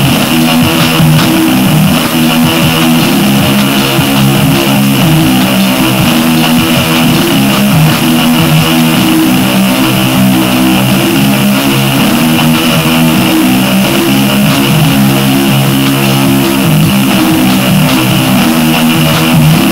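Loud, dense breakcore noise track built on hardware: a distorted, buzzing low drone in shifting pitched layers, with harsh hiss over it and fast clicking throughout.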